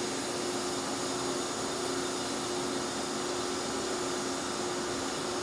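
Durma AD-S 30175 press brake's hydraulic pump running with a steady hum and hiss while the ram is lowered at slow speed.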